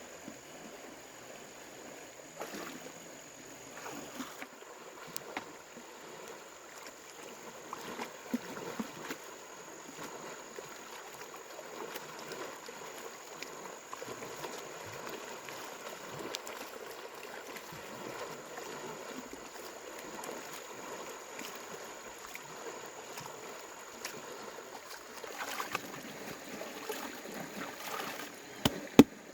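Water sloshing and splashing irregularly, with occasional knocks and a few sharper clicks near the end.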